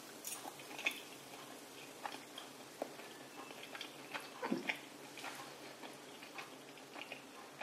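Quiet chewing of a mouthful of pasta: small, faint mouth clicks and smacks scattered at irregular intervals, with a brief soft sound about four and a half seconds in.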